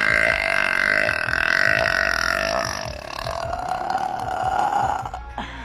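A girl's single long burp, drawn out for about five seconds at a fairly steady pitch, slowly fading away over its second half.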